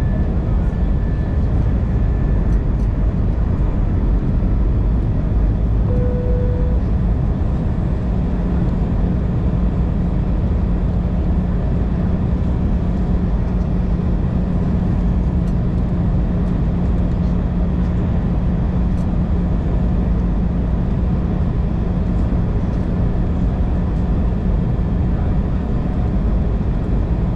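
Steady airliner cabin noise on the descent into landing: jet engines and rushing air as a continuous low rumble. A steady low hum joins about eight seconds in and holds most of the way.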